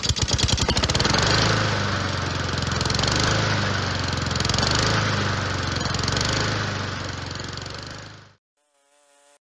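Honda HRX217 walk-behind lawn mower engine just after starting: its firing quickens over the first half second, then it runs steadily. The sound cuts off suddenly about eight seconds in.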